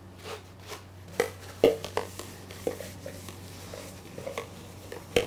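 Light clicks and knocks of kitchen equipment being handled on a counter, scattered irregularly, over a steady low hum.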